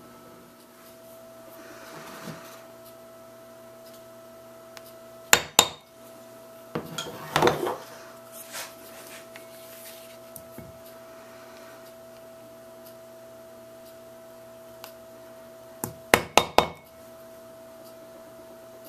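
Sharp metallic strikes of a mallet on a metal leather tool held on leather over a brass plate: two strikes about five seconds in, a couple of seconds of clinking metal after them, then a quick run of four strikes near the end.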